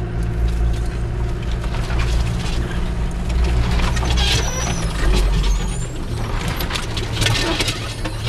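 Land Rover Discovery's 200Tdi four-cylinder turbodiesel running steadily at low speed, heard from inside the cabin, with frequent irregular scrapes and clicks as hedge branches brush along the bodywork, the loudest scrape about four seconds in.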